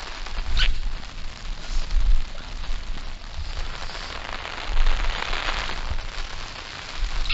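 Wind gusting on the microphone, with uneven low buffeting over a steady rain-like hiss that swells several times.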